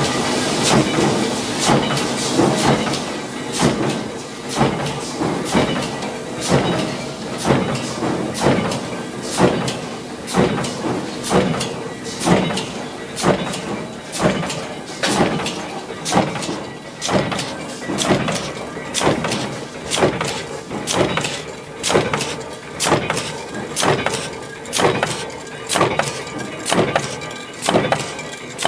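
Mechanical power press stamping coil-fed steel strip into concealed hinge parts, striking in a steady rhythm of about one stroke a second over the continuous hum of the running machine.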